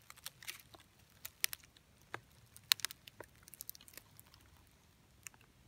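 Faint, irregular crackling of dry leaf litter and twigs, with scattered small snaps, the sharpest a little under three seconds in.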